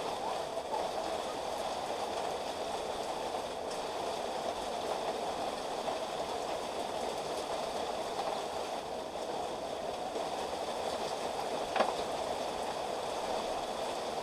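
Steady rain falling, an even hiss, with one sharp click near the end.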